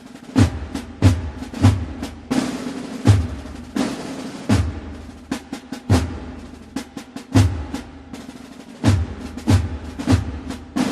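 Drum section of a cornet-and-drum marching band playing: a continuous snare roll with heavy bass drum strokes falling every half second to a second and a half, the cornets silent.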